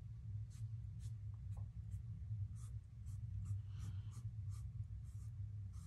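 Flat paintbrush scratching across canvas in short, streaky strokes of acrylic paint, about two or three strokes a second, over a steady low hum.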